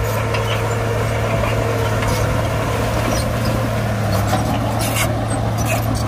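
Heavy diesel engine of a LiuGong crawler bulldozer running steadily as it works, with a few short metallic clanks and rattles.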